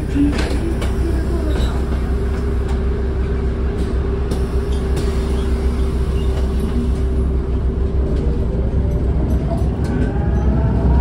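Ride noise inside a moving city bus: a steady low rumble with a steady hum over it. About ten seconds in, a rising motor whine begins as the bus speeds up.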